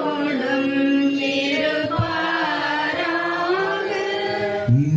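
Congregation chanting the sung response of the Mass's Preface dialogue in Tamil, several voices on held notes with slow pitch changes.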